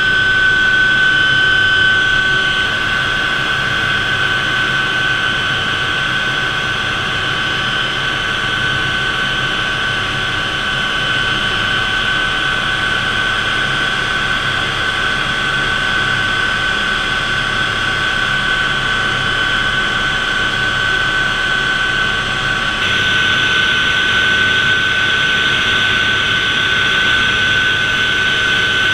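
Hughes OH-6A Loach helicopter heard from inside the cockpit in cruise flight: a steady high whine from its Allison T63 turboshaft over rotor and airflow noise. The hiss grows a little brighter about three-quarters of the way through.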